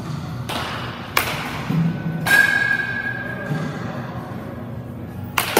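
Baseball bat hitting pitched balls in a netted batting cage: several sharp knocks. The loudest, about two seconds in, leaves a clear ringing ping that hangs for over a second, and another sharp crack comes near the end.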